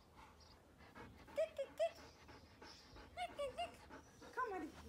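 Bernese Mountain Dog whining: short high-pitched whines in two quick clusters, then a longer whine that falls in pitch near the end.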